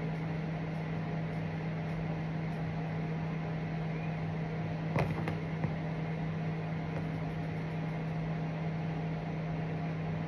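A steady low hum, with a spoon clinking against a dish twice about five seconds in.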